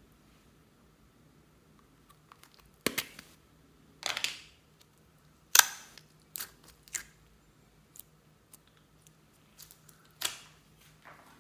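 A thin plastic slime cup squeezed in the hands, giving a handful of sharp plastic clicks and crackles, the loudest about five and a half seconds in.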